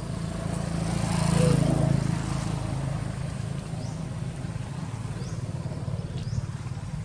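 A motor vehicle's engine running steadily, growing loudest about a second and a half in and then easing off.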